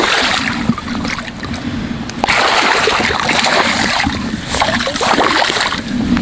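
Hooked pike thrashing and splashing in shallow water at the bank as it is landed. The splashing comes in uneven bursts and is loudest from about two seconds in.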